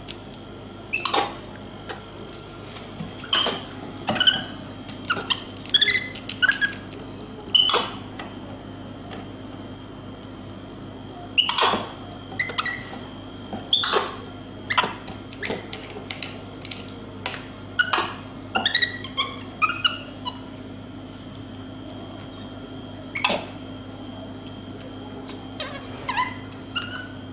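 A monkey giving short, high squeaks and chirps in irregular clusters, some sliding up or down in pitch, over a steady electrical hum.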